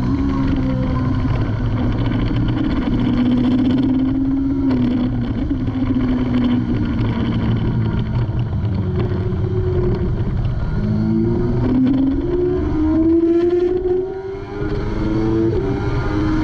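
Kawasaki ZX-6R 636 inline-four engine heard from onboard at track speed over steady wind rush. The engine note falls as the bike slows for a corner, then climbs hard on the way out, stepping down at each upshift in the second half.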